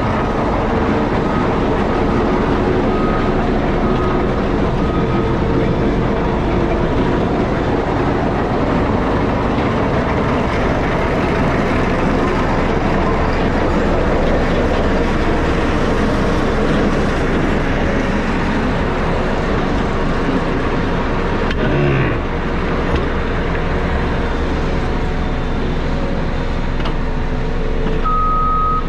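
Diesel engine of a compact earthmoving machine running steadily while working. Its reversing alarm beeps faintly in the first few seconds and loudly again near the end, and there is a short knock about three-quarters of the way through.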